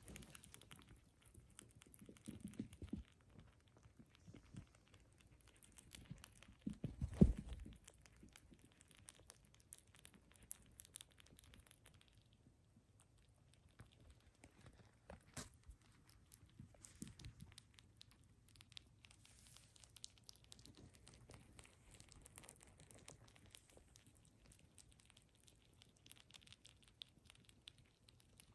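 Baby rabbits nibbling and chewing food together: faint, quick little clicks and crunches, with one soft low thump about a quarter of the way in.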